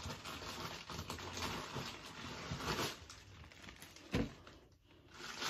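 Rummaging and handling noises, rustling with small clicks, as a small bag is fetched, then a single knock about four seconds in.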